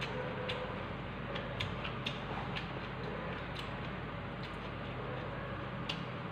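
A person eating noodles with chopsticks from a stainless steel bowl: chewing, with small irregular clicks, over a steady low hum.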